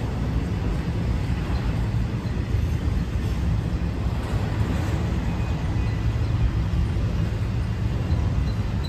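Intermodal freight train rolling steadily past, its flatcars of highway trailers and double-stack container cars making a continuous low rumble on the rails.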